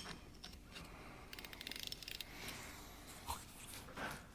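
Faint hand-tool work on a diesel injection pump: a sharp click, then a ratchet wrench clicking quickly for about a second, and a couple of light knocks.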